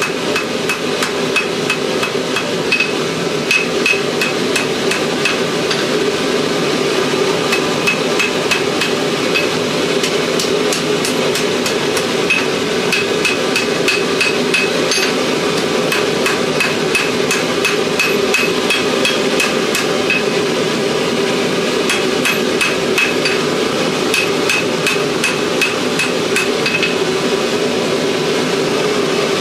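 A hand hammer striking steel on an anvil again and again, about two or three blows a second with a metallic ring: a knife blade being forged from an old file. Under the blows runs a steady rushing noise.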